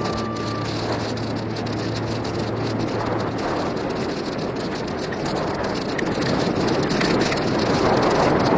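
Wind rushing over an action camera's microphone as a mountain bike rolls down a dirt forest singletrack, with tyre noise and small rattles and knocks from the bike over the bumpy trail. It gets louder in the last couple of seconds as the bike speeds up.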